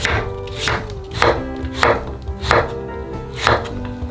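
Kitchen knife chopping Korean radish and zucchini on a wooden cutting board: about six sharp knocks of the blade against the board, one every half second to second, over background music.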